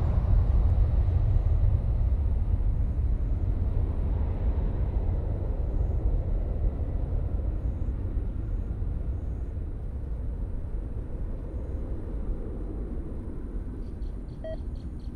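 Boeing 747-400F's four Pratt & Whitney PW4000 turbofans at takeoff thrust: a deep rumble that fades steadily as the freighter rolls away down the runway.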